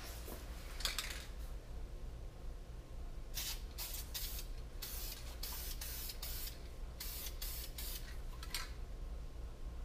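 Aerosol spray paint can hissing in a string of short bursts as paint is sprayed onto an exhaust pipe clamp. There is one burst about a second in, and the rest come in quick succession from about three seconds in.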